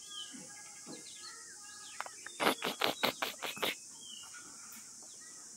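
Small birds chirping and calling over a steady high hiss. A little over two seconds in, a quick run of about six rustling thumps close by, lasting about a second and a half.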